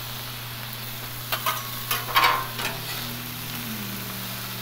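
Thinly sliced New York strip steak sizzling steadily on a Blackstone flat-top griddle, with metal spatulas scraping and clacking on the steel plate several times in the middle, the loudest about two seconds in.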